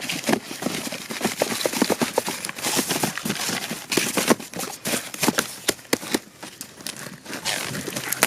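Quick, irregular clatter of small knocks and taps with paper-like rustling: cardboard sky-shot firework tubes being handled and packed.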